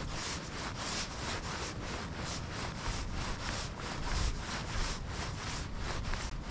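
Fly line being stripped in by hand through the rod guides, a quick, even series of short rubbing strokes as the fly is retrieved.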